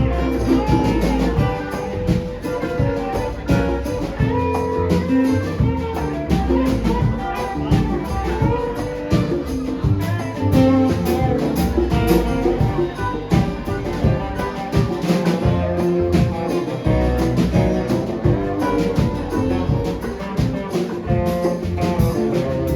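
Band playing music, led by guitar, over a steady drum beat.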